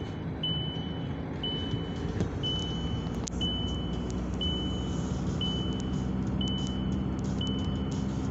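Car engine and road noise heard from inside the cabin while driving slowly, with a dashboard warning chime beeping about once a second, each beep a single high tone nearly a second long. A few light clicks come through, the sharpest about three seconds in.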